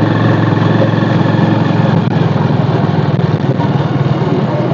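Small motorcycle engine running at a steady speed while riding, a loud, even hum with rapid firing pulses.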